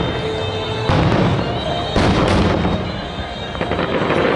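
Fireworks bursting over music, with sharp bangs about one and two seconds in and a run of crackling near the end.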